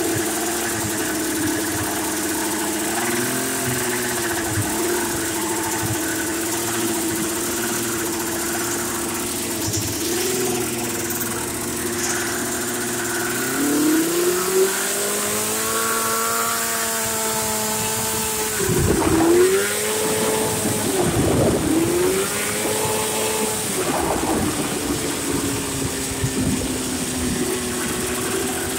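440 two-stroke engine on a homemade golf cart running steadily, then revving up about halfway through, with several quick drops and rises in revs shortly after before it settles back to a steady run.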